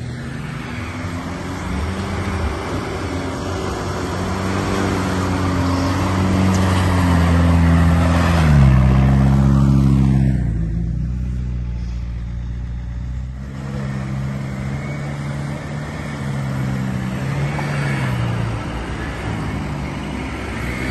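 A 4x4's engine revving up and down as it is driven off-road. Its pitch climbs and drops several times and it is loudest about eight to ten seconds in.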